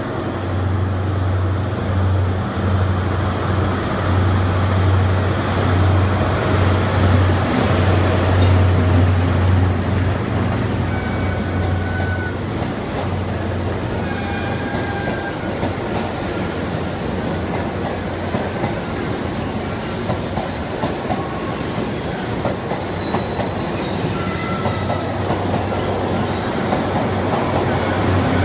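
InterCity 125 High Speed Train running slowly past. The Class 43 diesel power car's engine gives a steady low drone for about the first half. Then the coaches roll by with short high wheel squeals, and the engine noise builds again near the end as the rear power car draws level.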